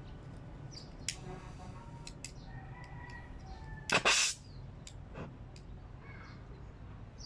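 Stick welder's arc struck briefly on the compressor's pipe: a short hissing burst of under half a second about four seconds in, amid scattered small clicks and taps of the electrode and holder being handled.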